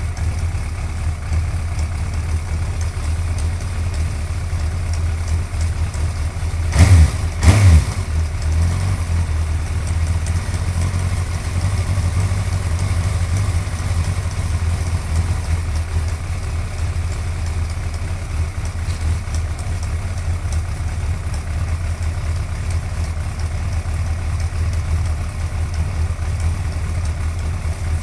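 Suzuki GSX-R1100 inline-four engine idling steadily, with the ticking noise it is being recorded for; about seven seconds in the throttle is blipped twice in quick succession, each rev short and much louder than the idle.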